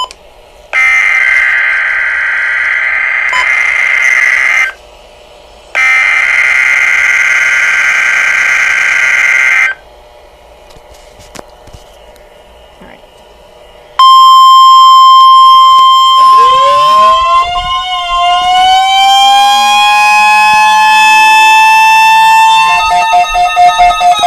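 NOAA Weather Radio test signals: two long screechy digital data bursts (SAME header tones), then after a pause the steady 1050 Hz warning alarm tone, joined a couple of seconds later by a wailing, sweeping alarm. Near the end it gives way to a rapid pulsing beep.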